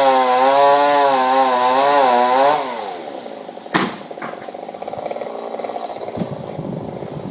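Chainsaw cutting into an oak limb, its engine pitch wavering under load. About two and a half seconds in the throttle is let off and the saw winds down to idle. A sharp knock comes about a second later.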